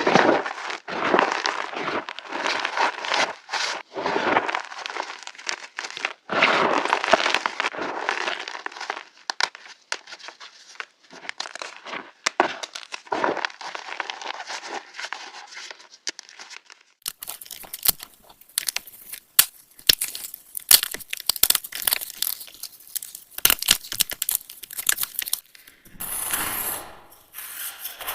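Pieces of reformed gym chalk being crushed, giving dense crunching and crumbling bursts. About halfway through the sound changes to sharper, separate crisp cracks and clicks with an added echo effect.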